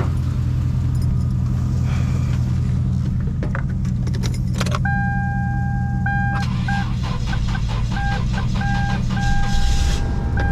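Keys jangle and click into the ignition of a Toyota 4Runner. Then a two-note warning chime beeps on and off while the engine is cranked, in a first test start after an alternator replacement. A steady low hum runs underneath throughout.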